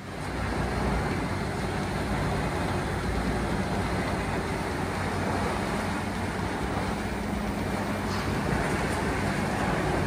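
CBI 6400 CT horizontal grinder, a 1050-horsepower tracked machine, running under load while grinding scrap wood: a steady engine drone with grinding noise. The sound comes up within the first second, then holds steady.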